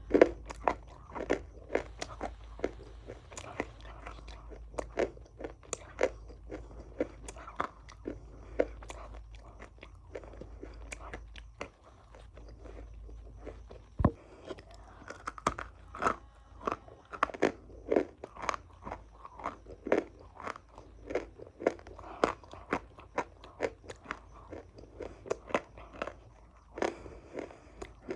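A person biting into and chewing crunchy food: a long run of sharp, short crunches, easing off for a few seconds near the middle before coming thick and fast again.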